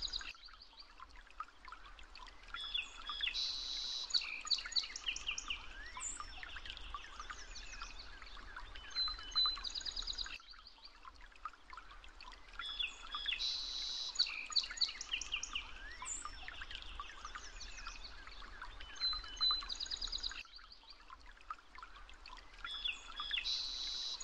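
Birds chirping and trilling over a faint steady background. The same stretch of about ten seconds repeats twice, as in a looped nature-ambience track.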